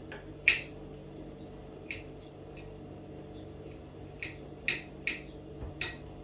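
Kitchen clinks: utensils and glassware tapping, about six sharp clicks spread irregularly over a few seconds, the loudest about half a second in, over a steady low hum.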